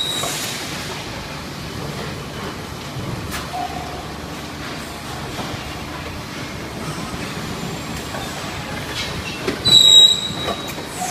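Thermoform packaging machine running with a steady mechanical clatter and hum. About ten seconds in comes a loud, brief high-pitched squeal, the same one heard just before.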